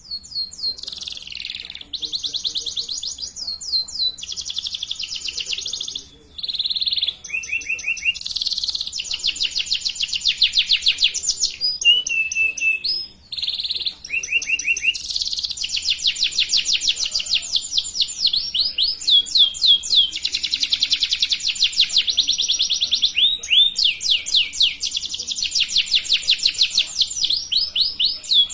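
Domestic canary singing a long, continuous song of fast rolling trills and chirped phrases, with a couple of brief breaks; a loud, busy canary song of the kind played as a lure for young canaries learning to sing.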